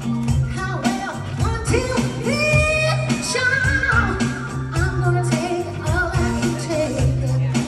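A woman singing a soul song live with a band, her voice gliding between sustained notes over a bass line, drums, guitars and keyboard.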